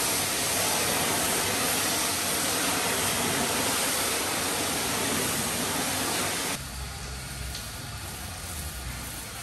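High-pressure washer jet spraying against a boat's fibreglass hull, a loud, even hiss. About six and a half seconds in it cuts abruptly to a quieter spray with a low hum beneath.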